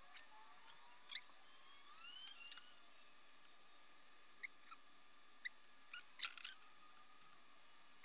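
Faint high squeaks of a marker drawing on a steel bicycle frame tube, then a few light clicks and taps of small tools handled at the frame and bench, the loudest a short cluster about six seconds in.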